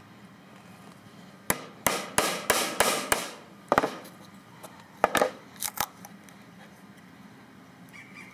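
Claw hammer striking a chisel driven into a short block of wooden 2x4 stud to split it down the middle: a quick run of about six sharp blows, then a few more spread out.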